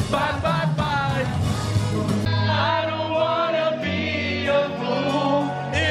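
Live pop band music with singing, heard from within the audience, with many voices in the crowd singing along.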